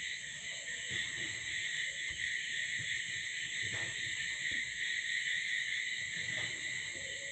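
A steady, shrill chorus of night insects such as crickets, with faint rustling of paper being pressed and creased by hand a few times.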